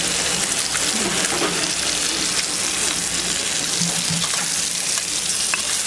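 Chopped tomato, onion and green chile frying in a pan, with eggs cracked in, giving a steady, even sizzle.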